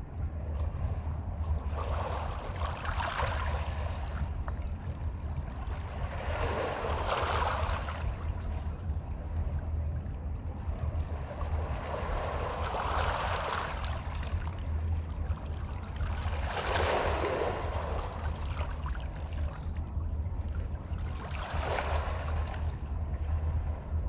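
Small waves lapping on the shore, five soft swells of wash about every four to five seconds, over a steady low rumble.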